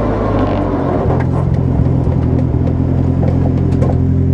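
Opel Kadett GSi 16V rally car's four-cylinder 16-valve engine idling at standstill, heard from inside the cabin; it settles to a steady idle about a second in.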